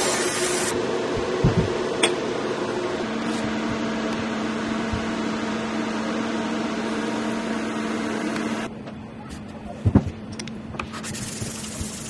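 Laser engraver running with a steady machine hum and fan noise while it marks a metal dog tag; the hum drops in pitch about three seconds in and cuts off at about nine seconds. Then come a couple of knocks and, near the end, the hiss of a metal tag being rubbed on sandpaper.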